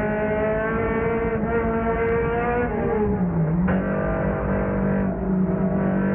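Race car engine heard from inside the car, running at steady high revs. About three seconds in the revs dip briefly as the driver lifts, then climb back as the throttle opens again.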